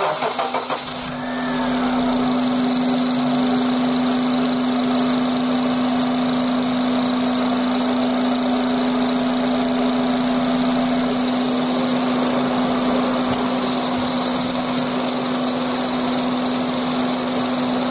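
Honda Accord engine running just after start-up, with a steady, high-pitched squeak from the accessory drive belt. The squeak comes mainly from the belt slipping, because its automatic tensioner is not holding enough tension.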